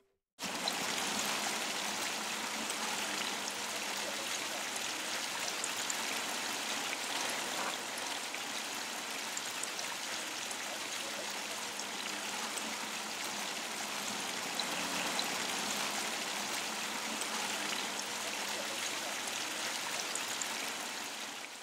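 Water from a small artificial rock fountain pouring and splashing steadily into the pool below. It starts suddenly about half a second in and fades out at the very end.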